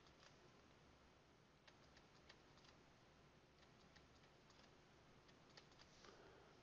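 Near silence with faint, irregular clicks of a stylus tapping on a writing surface as numbers are handwritten.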